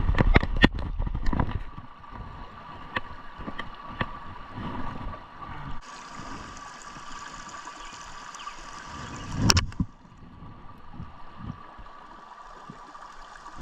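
Creek water running and gurgling at a small dam. Rumbling handling knocks come in the first second or so, and a single sharp knock about nine and a half seconds in.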